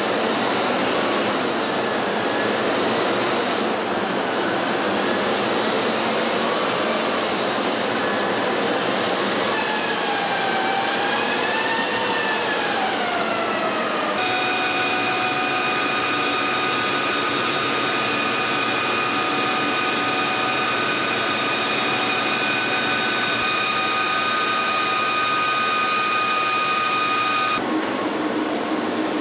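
MAN truck running on a chassis dynamometer, its engine and drivetrain noise mixed with a whine from the rollers. The whine rises and falls about ten seconds in, then holds at a steady pitch while the truck is held at a set test speed. The sound changes a little before the end.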